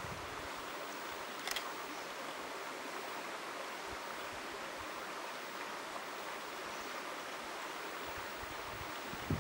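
Steady rush of flowing river water, with one short sharp click about a second and a half in.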